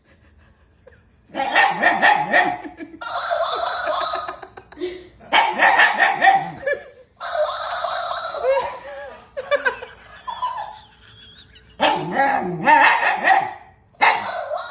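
A dog barking and vocalizing in a run of bursts, each lasting one to two seconds, with short pauses between them.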